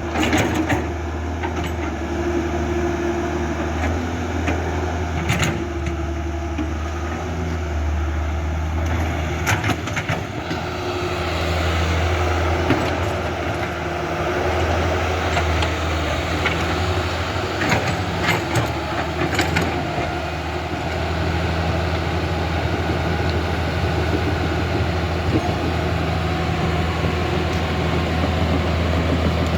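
Remote-controlled toy construction machines running: a steady low motor hum with occasional clicks and knocks.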